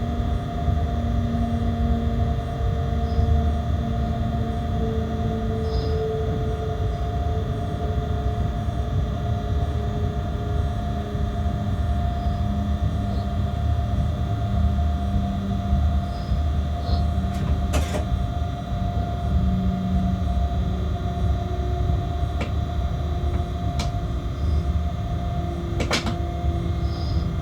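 Freight train cab interior while running: a steady low rumble with several humming tones that slowly shift in pitch. A few sharp clicks sound, the clearest about 18 and 26 seconds in.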